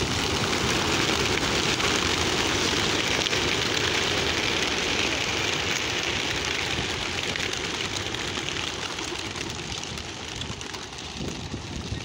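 Wings of a huge flock of pigeons taking off together from release crates: a dense, even rush of wingbeats, loudest in the first few seconds and slowly dying down as the flock climbs away.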